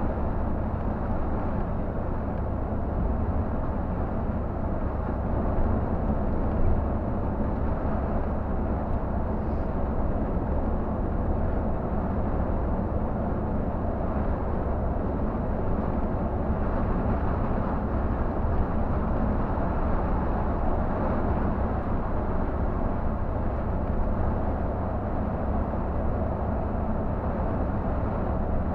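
Scania K124 360 coach's inline-six diesel running steadily at highway cruising speed, heard from inside the driver's cab. An even drone of engine and tyre noise, with no sudden sounds.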